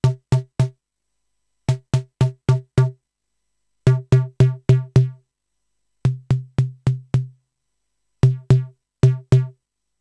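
Noise Engineering Tymp Legio Eurorack drum module playing sequenced synthesized drum hits, each a sharp click over a short low pitched tone. The hits come in runs of about five quick strikes every two seconds. The timbre shifts as the Wackitude knob is turned.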